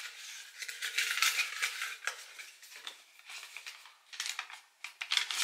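Folded paper lot slip being unfolded by hand: irregular crinkling and rustling with many small clicks.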